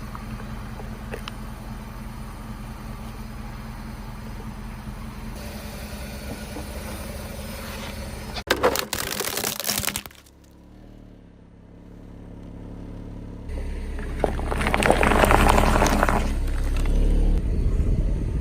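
Car engine idling steadily, then a loud crunching burst lasting about a second and a half as the car rolls over objects. After a sudden cut, the engine runs louder with another stretch of crunching and crackling under the tyres.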